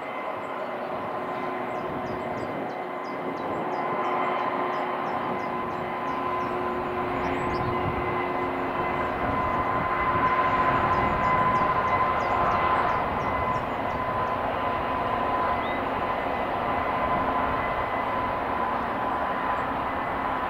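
Freightliner Class 66 diesel locomotive hauling a container train past, its engine running steadily with a steady whine over the rumble of the wagons. It grows a little louder in the middle as it draws level.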